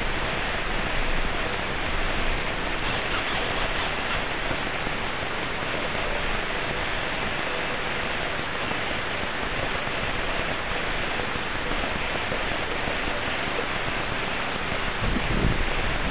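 Steady even hiss from the plane's onboard camera audio, with the electric motor stopped. A few low bumps come near the end.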